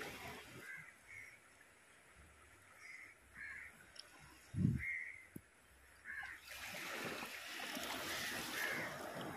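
Crows giving a string of short caws over surf washing on the rocks. The surf grows louder in the second half. A single loud low thump comes about halfway through.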